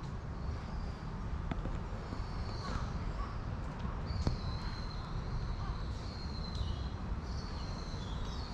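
Birds calling in the background: thin, high calls, some drawn out for about a second with short slides in pitch, over a steady low rumble, with a couple of faint clicks.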